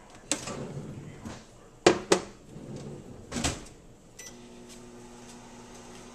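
Built-in oven being handled: a click, two sharp knocks and a clunk from its door. About four seconds in a short beep sounds as its controls are set, and a fan starts a steady hum.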